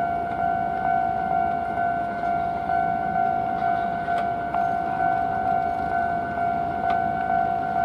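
Japanese level-crossing warning bell ringing steadily in its repeated electronic clang, over a low rumble. The bell signals that a train is approaching the crossing.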